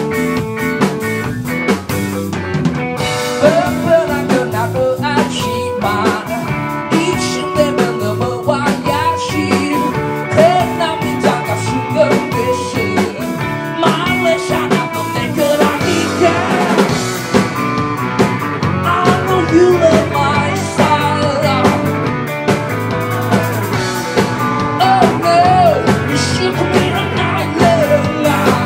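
Live rock band playing loud: electric guitars over a drum kit, with short sliding melodic lines.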